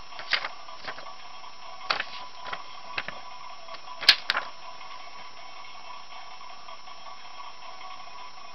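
Paper sheets and card being handled: a few short crisp rustles and taps in the first half, the sharpest a little after four seconds, over a steady hum.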